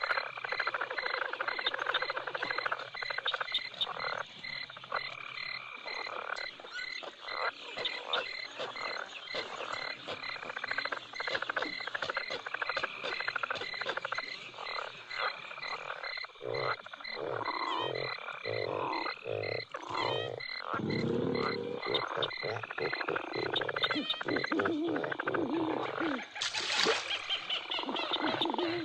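Night-bayou ambience effects from the Pirates of the Caribbean ride: a dense chorus of frogs croaking over a steady pulsing insect-like chirp, with deeper, slower croaks joining about halfway through.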